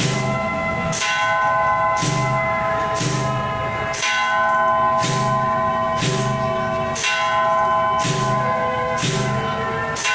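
Temple procession percussion beating together about once a second. Each beat combines a low drum stroke and a cymbal crash, and bright gong tones keep ringing between the beats.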